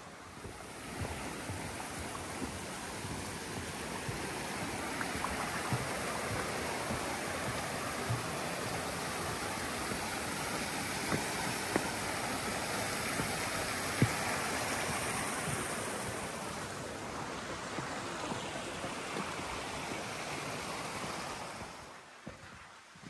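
Running water: a steady, even rushing that fades in about a second in and cuts off suddenly near the end, with a few faint clicks over it.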